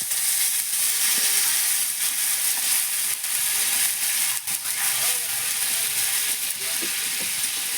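Young-jackfruit (hinchor) curry sizzling steadily in the pan, the hiss of water just poured onto the hot fried spice paste. A few sharp knocks are heard midway.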